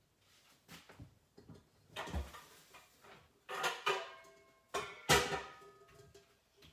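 Metal cooking pots clanking a few times as they are handled, each knock leaving a short metallic ring.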